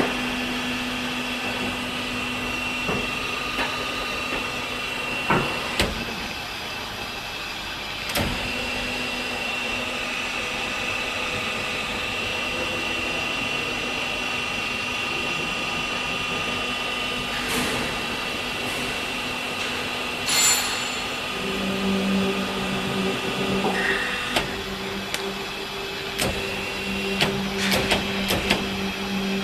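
Steady machine hum and whir with a high whine, broken by occasional sharp clicks and knocks; about two-thirds of the way in a second, deeper hum starts up and runs on.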